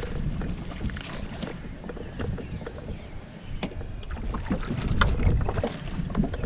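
Wind rumbling on the microphone, with scattered small knocks and clicks, most of them about two thirds of the way through.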